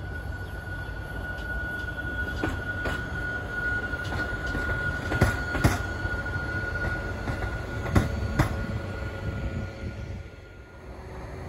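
Red locomotive rolling slowly past on yard track, its wheels giving a steady high squeal that fades out near the end. Three pairs of sharp clacks come about three seconds apart as its wheels cross rail joints or points, over a low rumble.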